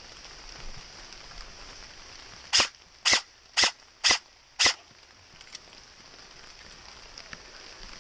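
Airsoft gun fired five times in semi-automatic, about two shots a second, in a quick string a little past the middle.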